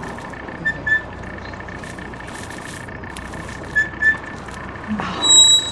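Shepherd's whistle commands to a working sheepdog: two pairs of short, quick whistle notes, then a longer, louder, higher-pitched whistle near the end.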